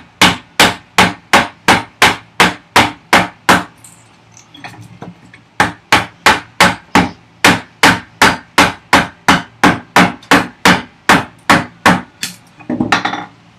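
Mallet blows driving a large timber framing chisel into ash to chop out a housing dado: quick, even strikes about three a second, a break of about two seconds a little after three seconds in, then another long run of strikes. A short scraping rustle comes near the end.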